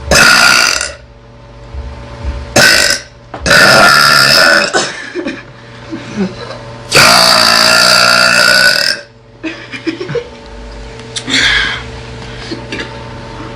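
A girl burping loudly five times. The longest belch lasts about two seconds, in the middle, and a fainter one comes near the end.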